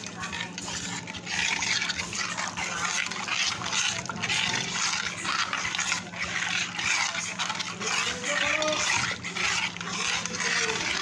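A metal spoon stirring and scraping a thick milky mixture in a steel pot in quick repeated strokes against the pot, over a steady low hum.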